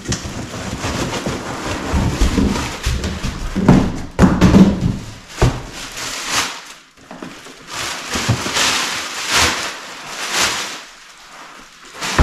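Clear plastic wrapping crinkling and a cardboard shipping box rustling and scraping as a golf bag is lifted out and unwrapped, with several dull thumps about four to five seconds in.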